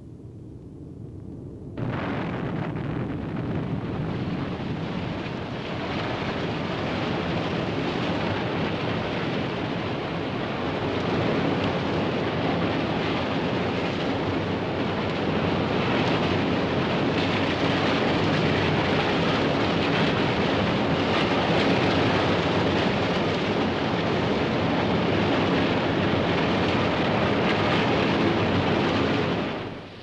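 Loud, steady roar of an electric arc furnace melting shop during steel tapping. It starts suddenly about two seconds in and fades out at the very end.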